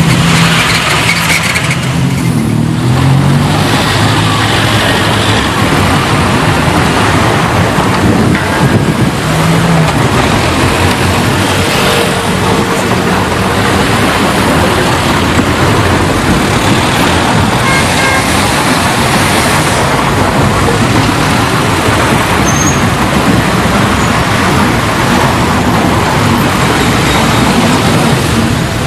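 City street traffic: a steady wash of car and other motor-vehicle engines and tyre noise, with the hum of a nearer engine in the first few seconds.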